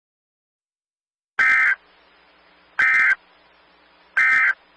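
Emergency Alert System End of Message signal: three short bursts of buzzy data tone (the SAME 'NNNN' code), evenly spaced about a second and a half apart, starting about a second and a half in, with a faint hiss between them.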